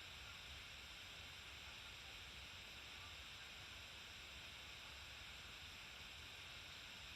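Near silence: a steady, even hiss with a faint low hum underneath, unchanging throughout.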